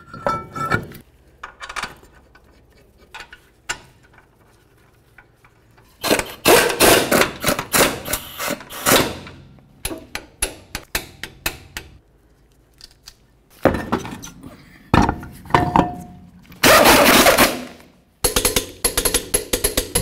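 A truck's rear brake and wheel being reassembled with hand and power tools: metal clinks and knocks as the rotor and caliper go on, and clattering bursts of fasteners being run in. Near the end an impact wrench hammers rapidly as it drives the lug nuts on.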